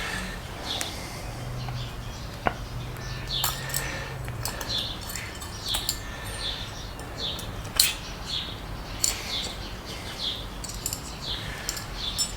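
A small bird chirping over and over in short high notes, with scattered sharp clicks and taps from hands working on a motorcycle headlight.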